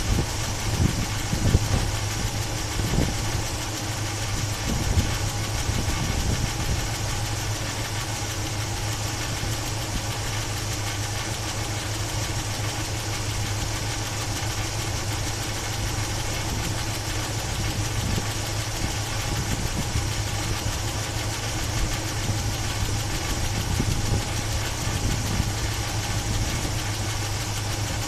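A Chevy 350 small-block V8 idling, a little uneven for the first few seconds and then steady. It carries the top-end noise the owner is chasing, which he describes as a kind of bad valve sound rather than lifter tick, and hopes may come from old gas.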